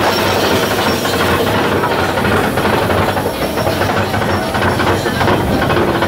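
Big Thunder Mountain mine-train roller coaster running along its track: a loud, steady rush of noise with a fine, irregular clatter of the cars.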